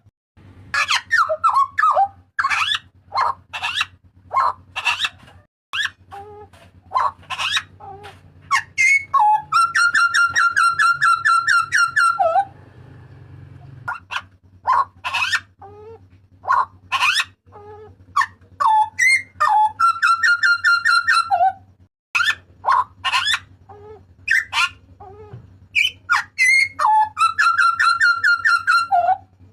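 Hooded butcherbird (jagal papua) calling loudly: a run of short whistled notes and sliding calls, broken three times by a couple of seconds of fast, buzzy rattling notes. A faint steady low hum runs underneath.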